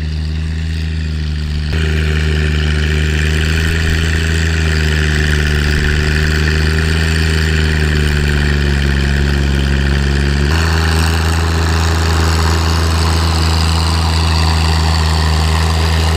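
John Deere 1025R compact tractor's three-cylinder diesel running steadily under heavy load, pulling a rear rotary tiller through wet sod, with the engine laboring. The sound steps up louder abruptly about two seconds in and changes character abruptly again about ten seconds in.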